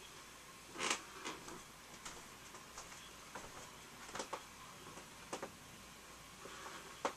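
Scattered short clicks and ticks at irregular intervals over a faint steady hiss, the loudest about a second in and another sharp one near the end.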